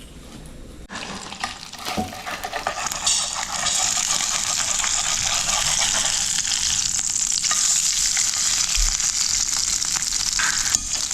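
Food frying in hot oil in a pan: a steady, dense sizzle that starts abruptly about a second in and builds over the next couple of seconds.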